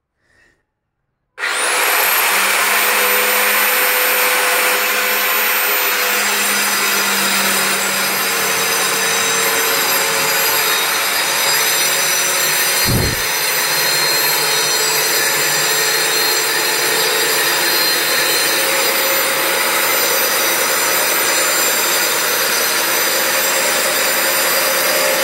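Electric power tool switched on, its whine spinning up within the first second, then running steadily at full speed, with one low thump about halfway through.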